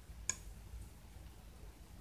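A single sharp click about a third of a second in as the plastic fidget spinner is lifted off a pocket digital scale, then faint room tone with a low hum.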